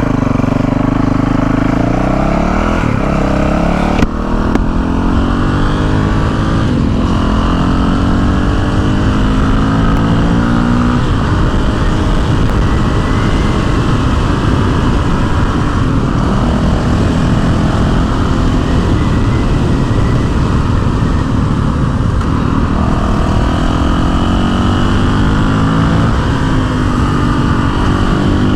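Honda CRF450L's single-cylinder four-stroke engine running hard on the road, its pitch climbing under acceleration and dropping back again and again. A single sharp knock about four seconds in.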